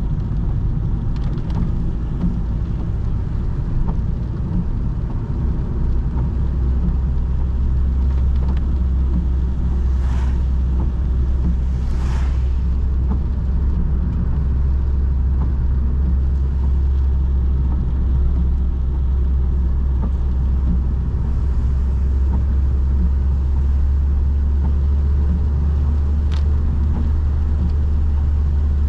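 Ford Focus 1.6-litre 100 hp petrol four-cylinder engine and road noise while driving, a steady low drone. Two brief rushing hisses come about ten and twelve seconds in.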